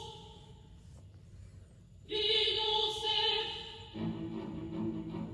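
Music playing through a compact CD player's built-in speakers: a long held sung note that fades away, then a second one about two seconds in. About four seconds in, a different piece with guitar and drums cuts in.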